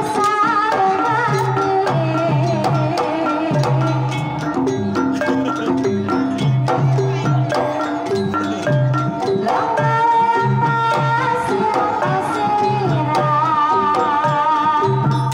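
Javanese gamelan playing a Banyumasan tayub gending: a female sinden sings a wavering, ornamented melody over kendang hand drum strokes, bronze metallophones and gongs.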